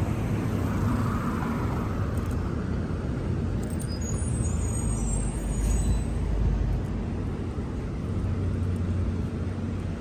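Street traffic: a steady low rumble of vehicle engines, with a faint high squeal about halfway through.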